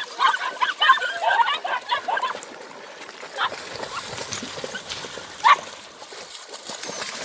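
Deutsch Langhaar puppies whining and yipping in quick high cries for the first two seconds or so as they splash into shallow water, then water splashing and sloshing around them. A single short yelp comes about five and a half seconds in.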